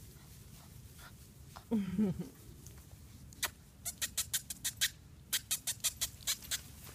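A Labrador puppy gives a short wavering whine about two seconds in. A quick run of sharp ticks follows, about five or six a second.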